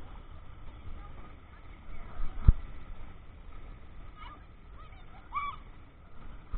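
A goose honking a few short times, each honk a quick rise and fall in pitch, between about four and five and a half seconds in. A single sharp knock comes about two and a half seconds in.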